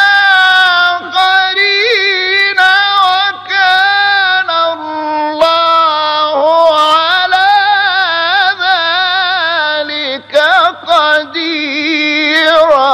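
A single voice reciting the Quran in a drawn-out melodic style: long held notes with ornamented, wavering turns, and a short break about ten seconds in.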